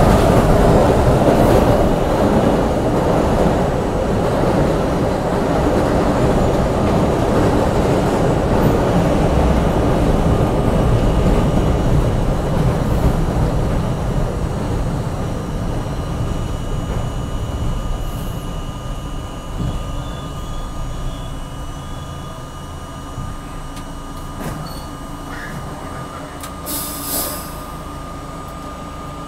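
New York City Subway J train heard from inside the front car: wheels rumbling and clattering on elevated track, growing steadily quieter as the train brakes into the station. A steady high whine remains as it comes to a stop, and there is a brief hiss near the end.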